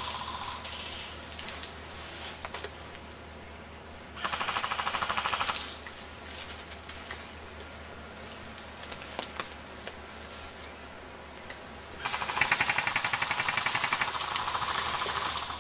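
Airsoft guns firing on full auto: a short burst about four seconds in, then a longer burst of rapid, even shots from about twelve seconds in that stops near the end.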